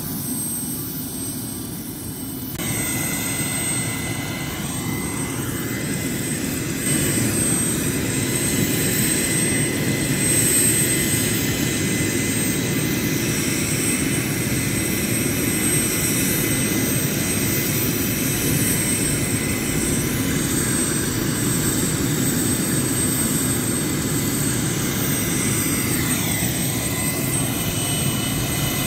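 Small turbine helicopter idling on its pad with the rotor turning: a steady engine whine over the rotor's churn, growing louder a few seconds in and then holding steady.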